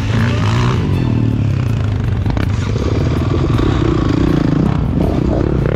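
Several KTM enduro dirt bike engines running close by, idling with revs rising and falling as one rider moves off beside the camera bike.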